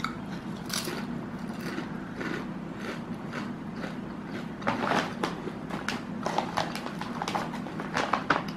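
Someone crunching salted egg flavour potato chips, biting and chewing in a run of irregular crunches, loudest about five seconds in.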